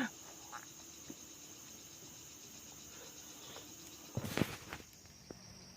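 Steady, faint, high-pitched chirring of insects, with a brief louder noise about four seconds in.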